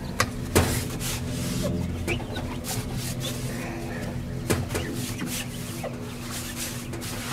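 Paper towels rubbing over the glass door of a Masterbuilt smoker as it is wiped dry, with scattered short knocks. A steady low hum runs underneath.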